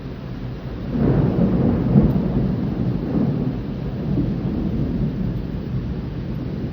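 Thunder rolling in a rain shower: a rumble builds suddenly about a second in, peaks a second later, and slowly dies away over steady rain.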